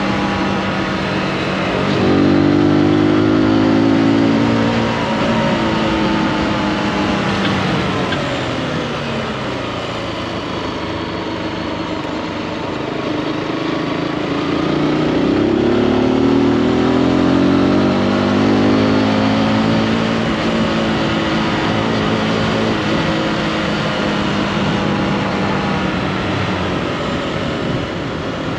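Zontes G155 Scrambler's single-cylinder engine pulling the bike along. The revs climb about two seconds in, ease off through the middle, climb again around halfway and hold, then drop near the end.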